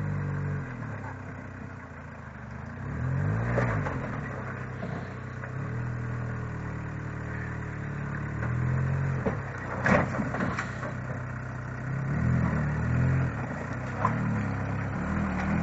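Off-road military vehicle's engine running and revving up and down several times, with a couple of sharp knocks about two-thirds of the way through.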